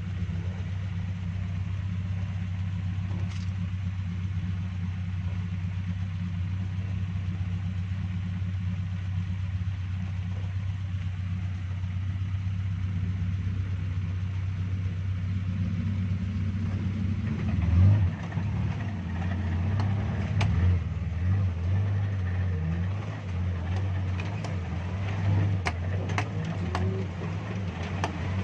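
Suzuki Jimny 4x4 engine running at low, steady revs while crawling off-road; about two-thirds of the way through the revs start rising and falling, with scattered sharp knocks and clicks.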